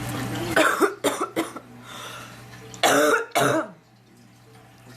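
A sick woman coughing: a quick run of harsh coughs just under a second in, then two loud coughs about three seconds in.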